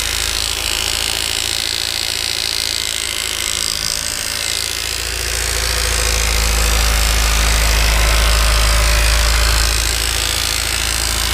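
Honda S2000 four-cylinder engine running steadily at operating temperature, with a metallic timing-chain rattle: the sign of a worn timing chain tensioner (TCT).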